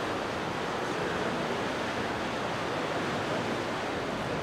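Steady rushing noise of fast-flowing floodwater in a swollen river.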